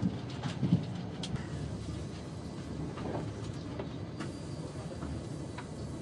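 Cabin running noise of a Queensland Rail Tilt Train travelling at about 90 km/h: a steady low rumble with occasional light clicks and knocks.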